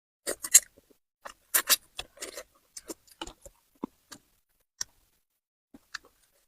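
Close-up eating sounds: a run of short wet mouth clicks and smacks from chewing, thick for the first few seconds and thinning to a few single clicks.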